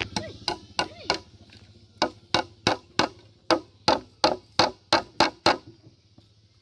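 Hammer striking headless nails used as pegs into a wooden strip: a few taps, a short pause, then a run of about ten quick strikes at roughly three a second that stops shortly before the end.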